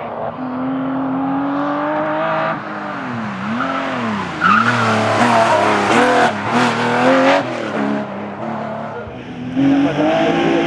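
Porsche 911 Carrera RSR flat-six race engine revving hard through the gears. Its pitch climbs, drops sharply twice on lifts and downshifts about three to four seconds in, is loudest and highest for a few seconds after that, then falls away and climbs again near the end.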